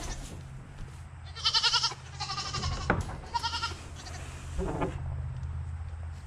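Young goats bleating: three short, wavering bleats about a second apart, over a low steady hum.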